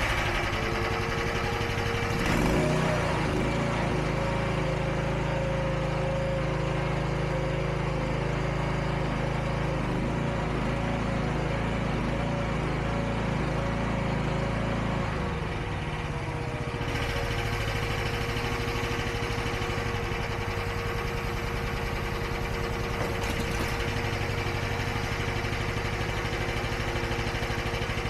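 Mini skid steer's engine running with a steady whine while the hydraulics raise a bucket loaded with 200 lb of bagged rock, then lower it. The sound is heavier for the first half and settles to a steadier run about halfway through.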